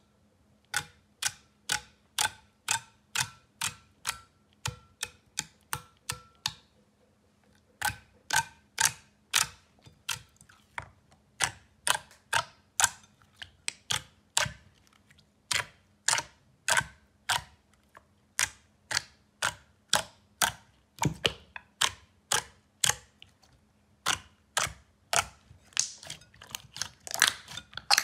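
Glossy slime being poked, pressed and kneaded by hand, giving sharp wet clicks and pops about two to three a second, with a short pause about seven seconds in.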